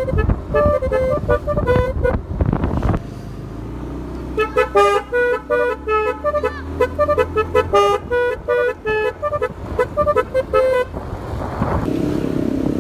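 Basuri 'keong' telolet horn playing quick melodic tunes of short stepped notes, in two phrases with a break a few seconds in. A motor vehicle's engine runs underneath, and a rush of engine noise rises near the end.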